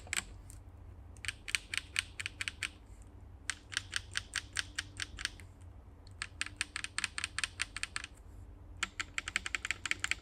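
Typing on a Swagkeys Eave65 mechanical keyboard with BSUN RGY switches, ABS keycaps, a polycarbonate plate and no case foam: fast runs of keystroke clacks in four bursts with short pauses between.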